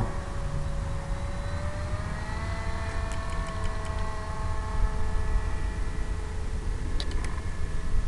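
Steady whine of an electric radio-controlled airplane's motor and propeller, its pitch stepping up a little about two seconds in, over low wind rumble on the microphone.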